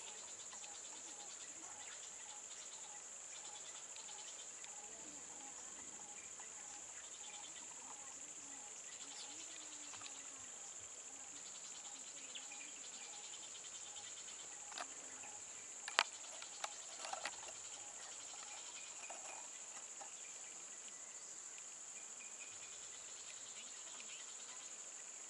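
Steady high-pitched drone of insects, with a few sharp clicks or knocks about two-thirds of the way through.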